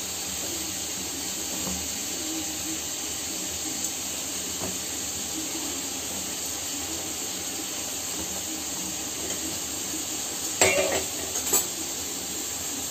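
Steady hiss of a gas stove burner flame with vegetables sizzling in a kadhai. Two metallic clanks come near the end, as the iron tawa is set back on the burner.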